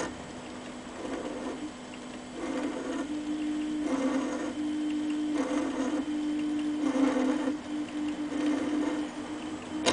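Proxxon CNC mini lathe cutting grooves in a brass part: a steady motor hum, with short whirring bursts from the machine about every second and a half as the tool works, and a louder burst near the end.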